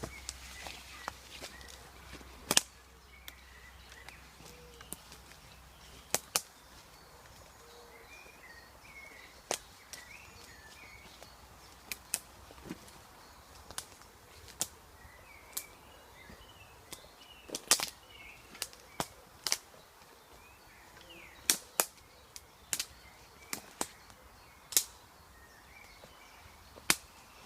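Footsteps through woodland undergrowth, with dry twigs snapping sharply underfoot at irregular intervals, over faint birdsong.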